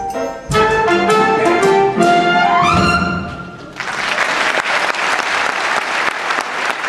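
Brass-led accompaniment plays the closing bars of a show tune, finishing with a rising run and stopping about three seconds in. An audience then breaks into applause.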